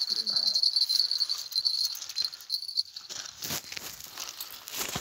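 Spinning reel's drag buzzing steadily as a hooked trout takes line while it is being brought to the net, stopping about three seconds in. After that come rustling and a few knocks of handling.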